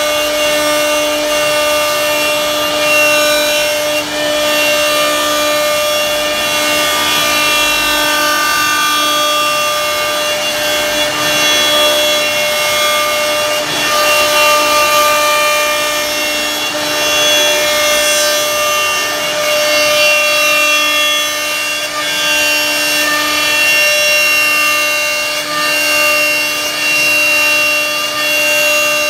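CNC router spindle carving a wooden door panel with a router bit: a steady whine over the continuous rasp of the bit cutting through the wood.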